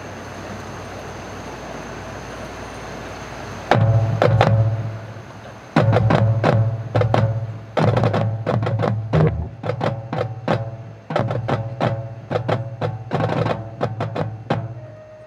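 Marching band percussion section, drumline with front-ensemble mallet instruments, starting a rhythmic pattern of sharp drum strikes and short ringing notes about four seconds in, after a few seconds of steady background noise.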